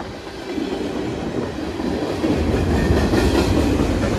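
Freight cars of a long freight train rolling past at close range, steel wheels running over the rails with a steady rumble that grows louder about two seconds in.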